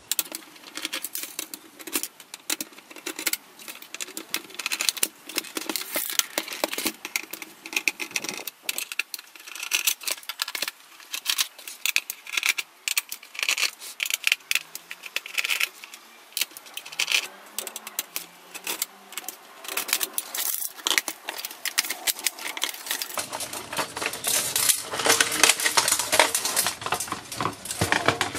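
Irregular clicks, taps and light metallic rattles as the plastic parts and sheet-metal chassis of a Sony DVP-NS530 DVD player are handled and pried apart. The clatter becomes denser and louder near the end as the chassis is lifted and moved.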